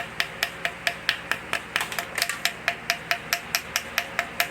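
Rapid light taps, about four to five a second, on the stuck float bowl of a Tecumseh carburetor to knock it loose.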